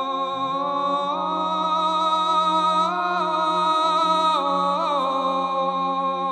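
Background music: a steady low drone under a sustained, chant-like melody that steps up in pitch twice and falls back near the end. No gunshots.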